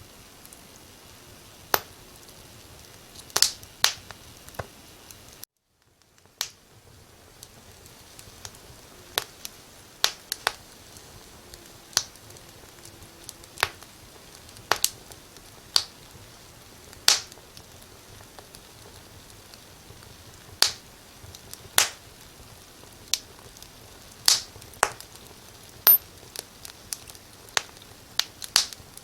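Firewood burning in a fireplace: irregular sharp crackles and pops, a few loud ones standing out, over a soft steady hiss of the flames. The sound drops out to silence for under a second about five and a half seconds in, then resumes.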